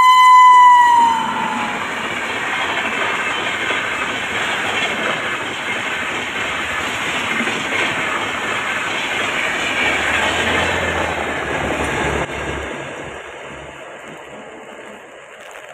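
An electric locomotive's horn sounds a steady tone that drops in pitch and cuts off about a second in. Then the Shatabdi Express runs past at speed: a steady rush of wheels on rail with clickety-clack, which fades over the last few seconds.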